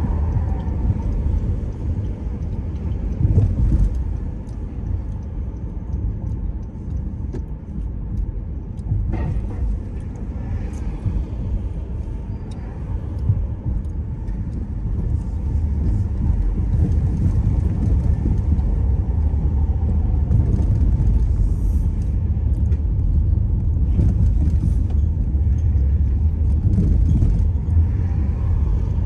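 A car on the move: a steady low rumble of tyres and engine, with a few faint knocks.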